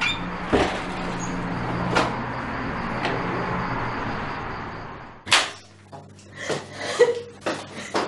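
A metal front door being worked: sharp clicks of the handle and latch over a steady background hum, then a loud door thud about five seconds in. After the thud the hum drops away, leaving a few soft knocks and movement sounds.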